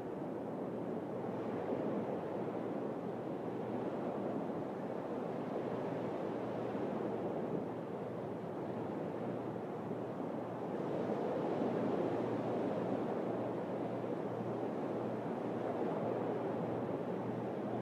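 Sea surf washing on the shore, a steady rushing noise that swells and eases slowly every few seconds.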